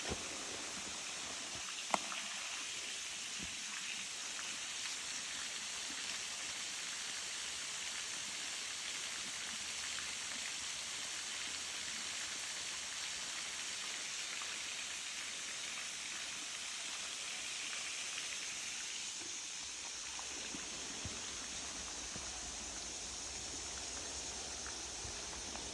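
Steady rush of falling water from a small trail waterfall, an even hiss-like sound. A single sharp click about two seconds in, and a low rumble joins near the end.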